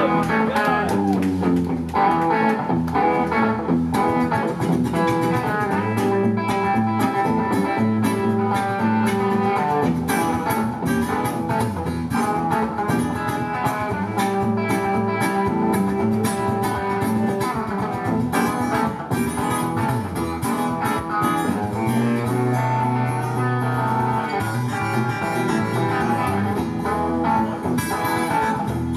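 Live band playing an instrumental passage: acoustic and electric guitars over bass guitar and drums, with a blues feel.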